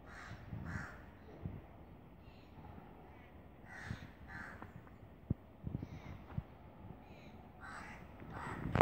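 Crows cawing repeatedly, often two calls in quick succession. A few sharp clicks come about five to six seconds in, and a louder knock at the very end.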